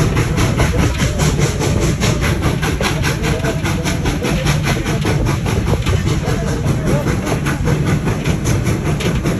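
Steam locomotive under way, its exhaust chuffing in a fast, even rhythm over the low rumble of the train running.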